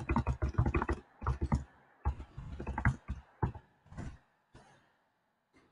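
Typing on a computer keyboard: quick runs of key clicks with short pauses, thinning out and stopping about four and a half seconds in.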